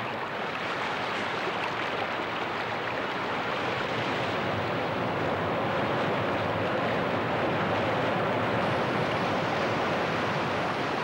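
Steady rush of heavy whitewater pouring over a waterfall, a little louder in the second half.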